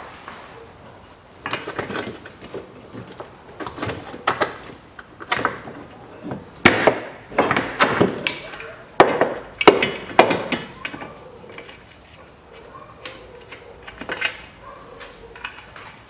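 Steel front lower control arm of a car being worked loose and pulled off by hand: a run of metal clanks and knocks, heaviest in the middle, with fainter clicks of handling near the end.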